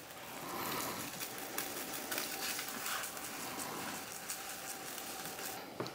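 Dry rub being shaken from a plastic shaker container over a raw beef flat on a metal sheet pan: a soft, steady patter of many small granule ticks.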